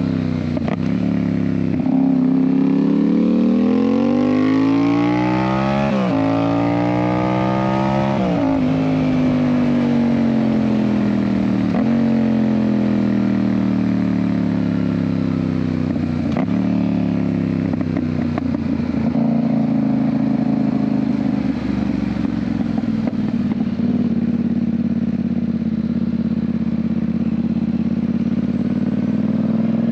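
Yamaha MT-07's parallel-twin engine through an aftermarket Ixil exhaust, ridden: it revs up through the gears with two quick upshifts, then rolls off and slows, and settles into a steady cruise for the last third.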